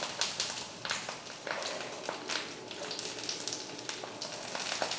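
Fingers pulling apart a fried fish on a banana leaf: irregular small crackles and crinkles from the leaf and the masala-coated fish being handled.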